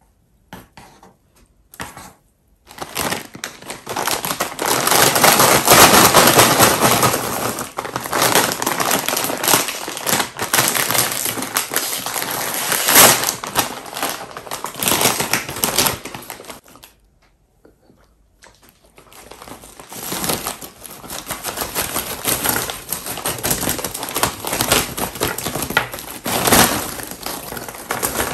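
Foil-lined Takis Fuego chip bag crinkling loudly as it is handled, shaken and poured out, with a short pause partway through.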